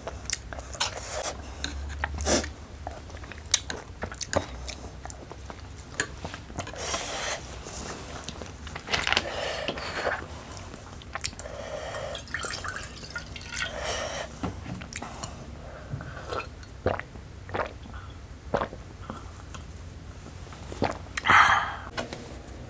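Close-up mouth sounds of someone eating bibimbap and japchae: irregular chewing with many short wet clicks and a few longer, louder noisy mouth sounds.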